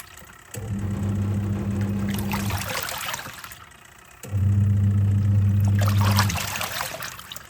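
Twin-tub washing machine's wash motor humming in runs of about two seconds with pauses of about a second and a half between, while water sloshes and trickles in the tub: the pulsator turning one way, then the other, in the wash cycle.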